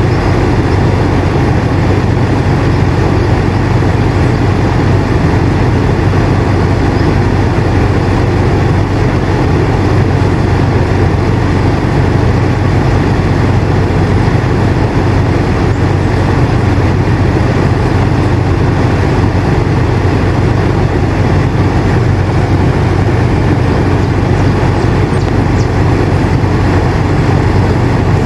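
Air conditioner running steadily: a constant low hum under an even rushing of air, with no change in level.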